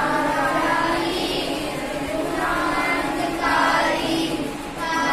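A group of children singing a prayer together in unison, in long sustained phrases.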